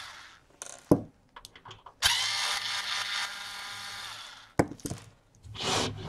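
Cordless electric screwdriver running for about two seconds, backing a case screw out of a DVR's case, with a few sharp clicks and knocks of the tool and screws before and after.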